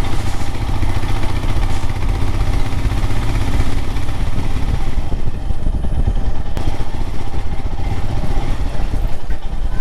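Royal Enfield Himalayan motorcycle's single-cylinder engine running as the bike is ridden along, a continuous loud rumble with no break.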